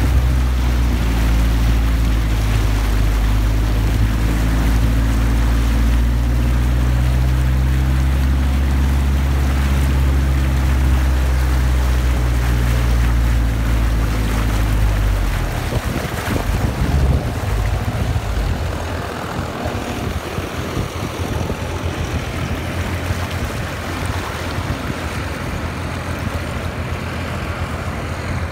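Floodwater rushing and splashing along the side of a bus as it drives through a flooded street, over the bus engine's low steady drone. About halfway through the engine drone drops away, leaving the rush of churning water.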